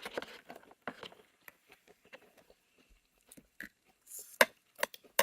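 Scattered crunches and short clicks of takeout food being eaten and handled, the sharpest click about four and a half seconds in.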